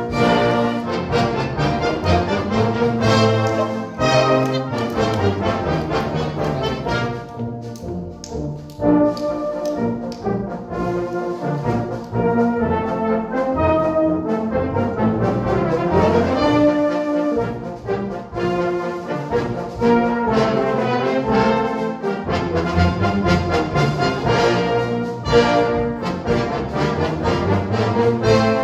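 A brass band playing in full ensemble, sounding sustained chords and moving melodic lines, with brief drops in level between phrases.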